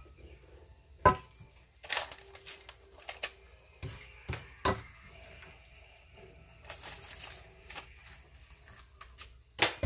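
Spatula scooping oat crumble topping out of a glass mixing bowl and dropping it onto the jam layer in a ceramic baking dish: scraping and rustling, with several sharp taps against the bowl or dish. The loudest tap is about a second in, and another comes near the end.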